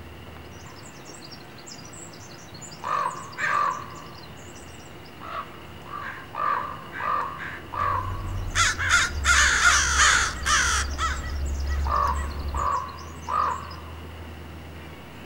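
Crows cawing repeatedly, in single caws and quick pairs, with faint high chirps of small birds behind. About eight seconds in, a loud rushing noise with a low rumble lasts around three seconds while the cawing goes on.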